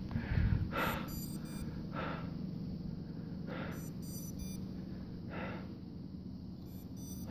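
A man breathing hard in short gasps about every one to two seconds while climbing a steep slope. Three short runs of faint, very high-pitched beeps come through, the chirping of the crashed FPV drone's locator beeper.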